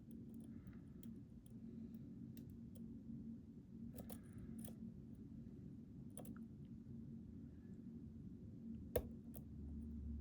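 Lock pick and tension tool working the pins of a Mul-T-Lock Interactive LFIC cylinder: faint, irregular small metallic clicks and brief scrapes, with one sharper click about nine seconds in.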